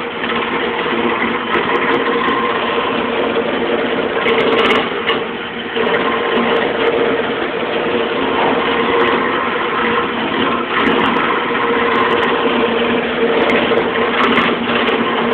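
Wood lathe running, its motor humming steadily while a turning gouge cuts the spinning wooden spindle with a continuous rough scraping.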